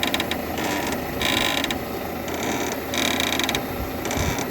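Peugeot 307 front stabilizer link creaking three times in a regular rhythm, about every one and a half seconds, as the steering is turned. It sounds like an old cart. The link's rubber bushing has dried out and cracked.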